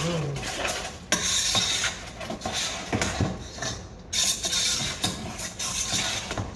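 A spoon stirring and scraping food around inside a cooking pot, in uneven strokes with short pauses and an occasional knock against the pot.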